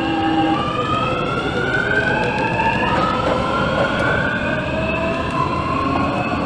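MTR South Island Line S-Train's traction motors and inverters whining, heard from inside the car: several tones climb steadily in pitch as the train accelerates, drop back about three seconds in and climb again, over a steady rumble of the running train.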